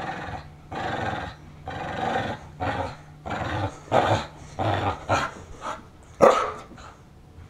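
Dog growling in play, in a series of rough bursts about once a second that turn shorter and quicker after about three seconds. The loudest burst comes near the end.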